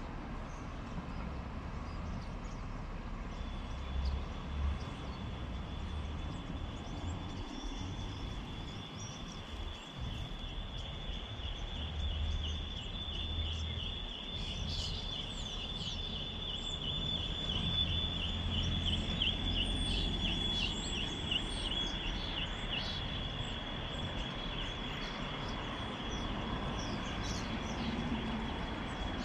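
Outdoor ambience: a thin, steady high-pitched tone starts a few seconds in and pulses rapidly through the middle, with scattered short bird chirps above it and a constant low rumble underneath.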